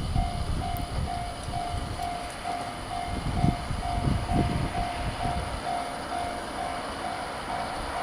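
Japanese railway level-crossing warning bell ringing its electronic tone, about two strokes a second, over a low uneven rumble.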